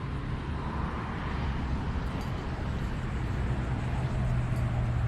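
Steady low engine hum with road-like noise from a motor vehicle, slowly getting louder.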